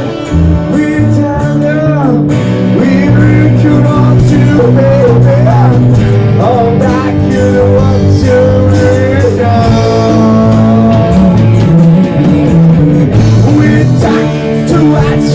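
A live band playing a song: a singer's melody with wavering held notes over guitar, bass and drums.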